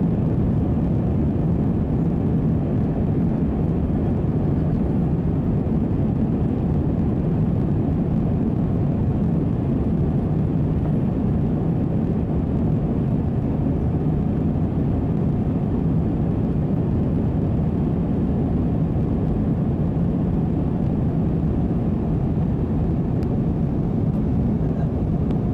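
Steady rumble of a jet airliner's engines and rushing air heard inside the passenger cabin as it climbs out after takeoff, even and unchanging, with a faint steady hum beneath.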